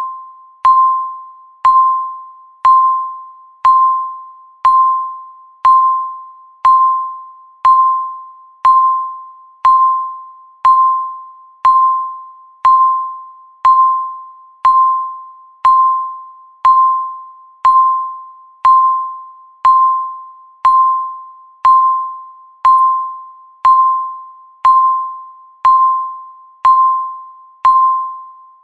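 Countdown timer beeping once a second: a single mid-pitched electronic tone that starts sharply and rings away before the next one.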